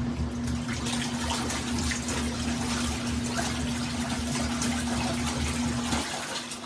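Water running hard into a portable twin-tub washing machine's tub, with a steady hum under it; it cuts off about six seconds in.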